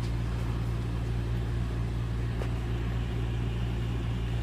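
Steady low machine hum, unchanging, with a faint tick about two and a half seconds in.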